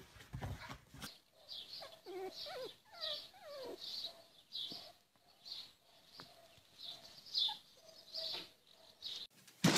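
After about a second of scuffling, faint small-animal whines and squeaks come from a puppy wrestling a kitten, mostly between two and four seconds in. Short high chirps repeat about every two-thirds of a second behind them.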